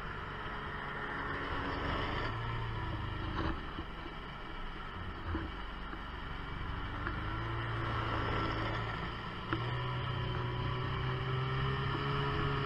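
Snowmobile engine running while riding along a trail, heard muffled through a waterproof camera housing. The engine note sags and breaks up around the middle, then climbs and holds higher from about ten seconds in as the throttle opens, with a few light knocks along the way.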